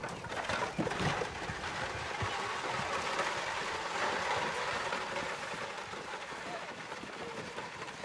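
Horse-drawn wagonette rolling over a gravel drive: wooden wheels grinding and rattling with the clatter of hooves, gradually fading.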